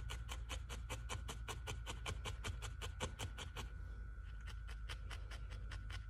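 Felting needle jabbing repeatedly into wool fibers, a quick, even poking at about five strokes a second as the fibers are felted in for a chicken's eye.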